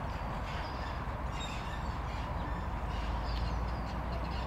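Outdoor ambience: a steady low rumble that gets a little louder about three seconds in, with faint, scattered bird chirps.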